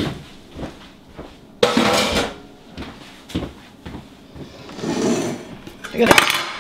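Kitchen handling noises: a series of separate knocks and clatters with short scraping rustles in between, and a sharper clatter near the end, as utensils and kitchenware are moved about on the counter.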